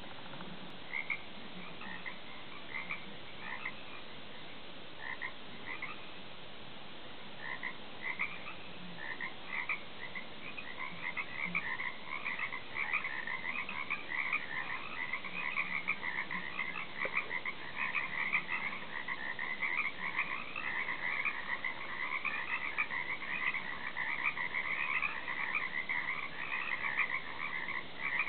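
A chorus of croaking frogs: scattered calls at first, thickening into a dense, continuous chorus from about ten seconds in.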